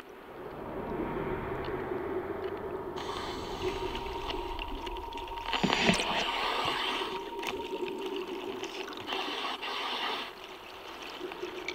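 Water heard underwater: a muffled, steady wash of moving water and gurgling with a low hum. A brief louder sound comes about six seconds in.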